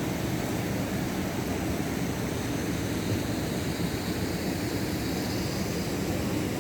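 Steady rush of water flowing out of an opened irrigation tank at full flow, a constant low rumble.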